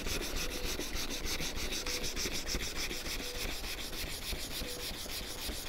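Sandpaper rubbed by hand over a plastic wheel trim in quick, even back-and-forth strokes. It is flatting filler and blending scratches in the tight corners between the spokes, where a power sander can't reach.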